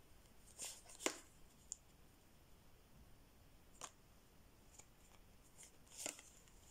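Near silence broken by a few light clicks and soft rustles of tarot cards being handled and laid on a table, the sharpest click about a second in and a couple more near the end.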